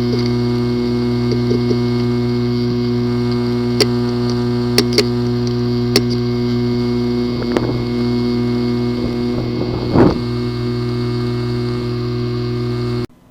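Steady electric hum, with a few sharp clicks and a louder rattle about ten seconds in; it cuts off suddenly near the end.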